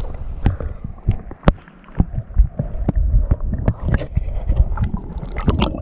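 Stream water sloshing and gurgling against a camera held at or just under the surface, with a low rumble and many irregular sharp knocks from the camera being handled in the water.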